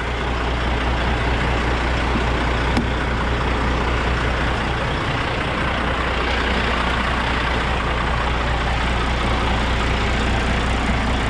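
A tandem dump truck's turbocharged diesel engine idling steadily, with an even low hum.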